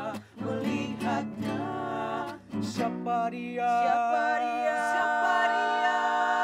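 Acoustic guitar with a group of young male voices singing in harmony. About three seconds in they settle onto one long held chord.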